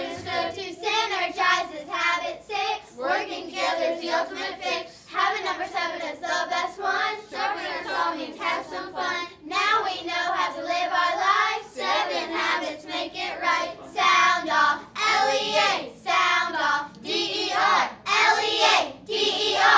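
A group of children singing a rhyming song together in unison, unaccompanied; the singing stops abruptly right at the end.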